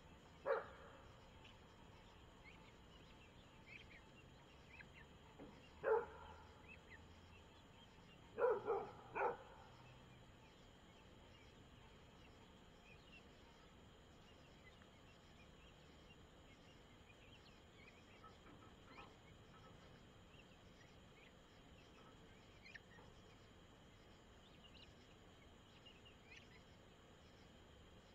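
Five short, sharp animal calls: one about half a second in, one at about six seconds, and three in quick succession around nine seconds. Between them there is a faint steady night background with scattered faint chirps.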